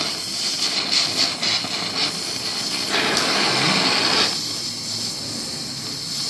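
Oxy-acetylene torch flame hissing steadily as it melts cast aluminium to open a groove along a crack. About three seconds in it swells into a louder, fuller rush for a second or so, then settles back.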